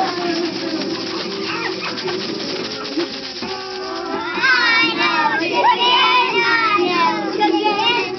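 A group of preschool children's voices making high, swooping calls in chorus, starting about halfway through. Before that there is a soft rustling hiss with a low steady note underneath.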